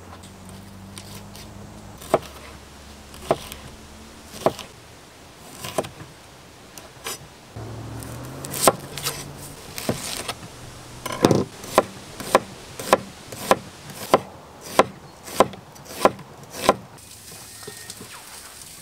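Sharp wooden knocks: a few scattered strikes at first, then a steady run of about ten, a little under two a second, stopping a couple of seconds before the end.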